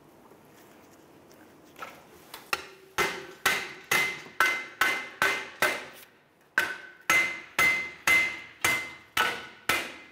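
A hammer striking the heads of bolts threaded into the back of a Ram 1500 front wheel hub, driving the hub out of the steering knuckle. Sharp, ringing metal blows start about two seconds in and come about two a second. They pause briefly near the middle, then carry on.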